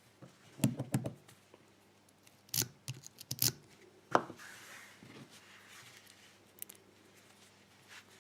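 Lock-picking tools working a Müllner pin-tumbler padlock: clusters of small metallic clicks and rattles, a sharper click about four seconds in, then a soft scraping.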